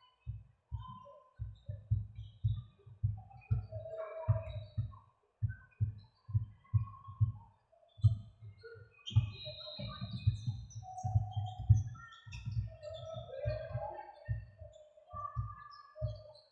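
Birds chirping and singing in short varied notes, over a run of irregular low thumps, a few each second.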